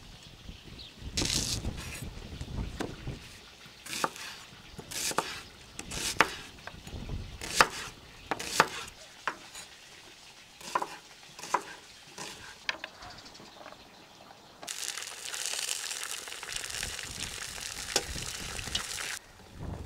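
A series of sharp knocks from handling vegetables and a knife chopping onion on a wooden cutting board. About fifteen seconds in, a steady sizzle starts as browned beef ribs go into a hot cast-iron kazan, and it stops suddenly near the end.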